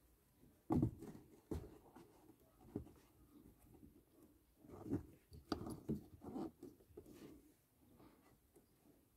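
A new panel engine air filter being set into its plastic airbox and pressed down by hand: a few soft knocks and scrapes of the filter's frame against the housing. The loudest knock comes about a second in, with a cluster of knocks and rubbing around five to six and a half seconds.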